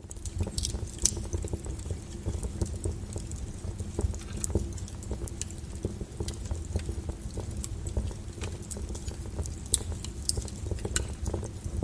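Small wood fire burning in a fireplace: irregular crackles and pops, several a second, over a steady low noise of the flame.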